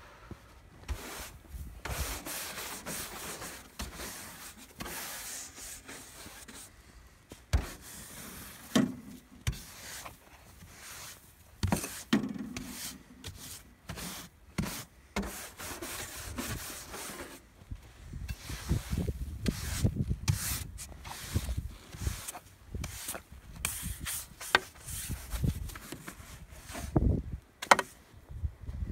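Snow brush sweeping and scraping snow off a car's hood and windshield in irregular rubbing strokes, with a few sharp knocks along the way.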